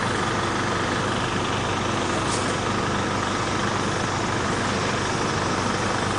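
Heavy engine idling steadily, a constant low hum without change.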